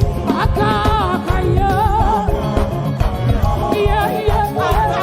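Live gospel praise music: a band with a driving low beat under a wavering, melismatic vocal melody.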